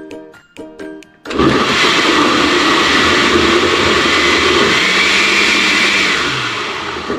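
Electric countertop blender with a glass jar switched on about a second in, blending mixed fruit into a smoothie. The motor runs loudly and steadily, easing off near the end. Light tinkly background music plays before it starts.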